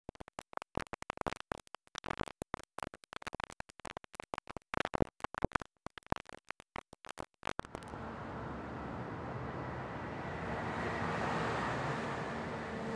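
Intro sound effects: irregular crackling clicks for the first seven or eight seconds, then a steady hiss that swells gradually louder.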